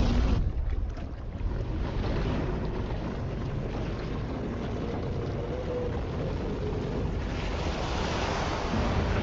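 Rushing, churning water with a deep rumble underneath. It thins briefly about half a second in and swells again after about seven seconds.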